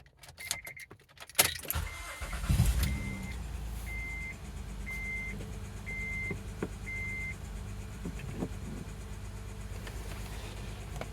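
Honda Odyssey engine starting about a second and a half in after a few key clicks, then idling steadily, with a dashboard warning chime beeping about once a second for the first seven seconds. A few light ticks sound in the idle, the ticking noise that the owner ties to a cylinder 2 misfire.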